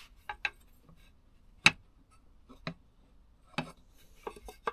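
Wooden dowels and a wooden hatchet handle being handled and fitted together: scattered light clicks and knocks, about seven in all, with one sharper tap a little after a second and a half in.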